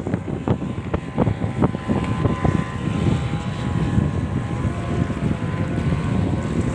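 A boat's engine running steadily, droning, with wind buffeting the microphone.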